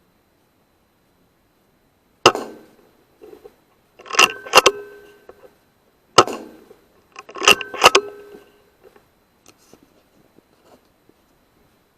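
Two shots from a .22 Weihrauch HW100 PCP air rifle, each a sharp crack. Each is followed a second or two later by two quick metallic clacks with a brief ring, as the side lever is cycled to load the next pellet.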